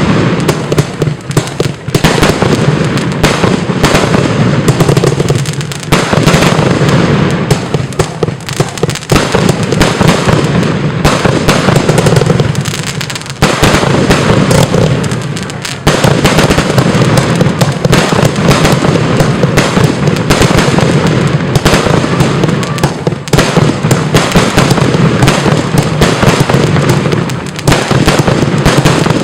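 Prisma Willow Probox 100's firework cake firing shot after shot in rapid succession: a dense, continuous run of launch thumps and bursts with a few brief lulls.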